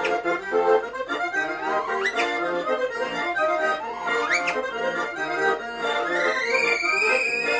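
Russian garmoshka (button accordion) playing a folk tune, with artistic whistling over it: short upward whistled slides about every two seconds, then one long high whistled note near the end.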